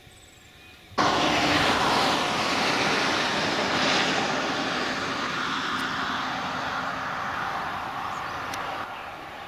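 Three Pacific National 82 class diesel-electric locomotives hauling an empty coal train: a loud, even engine roar that comes in abruptly about a second in and slowly fades.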